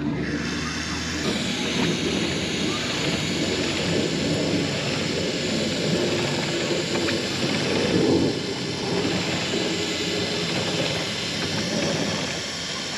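Aerosol chain cleaner spraying onto a motorcycle drive chain in one long, continuous hiss, with a lower rumble underneath.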